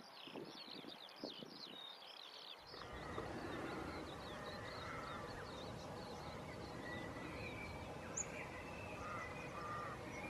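Outdoor ambience with birds calling: quick, repeated high chirps at first. About two and a half seconds in, the sound changes abruptly to a fuller, noisier background with scattered lower bird calls.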